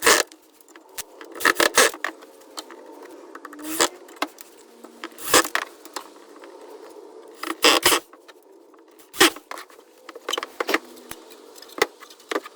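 Metal coat hooks clinking and rattling in short jangles, about eight of them spaced one and a half to two seconds apart.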